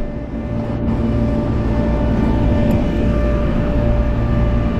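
2012 Hyundai Tucson running: a steady low rumble with a constant hum over it.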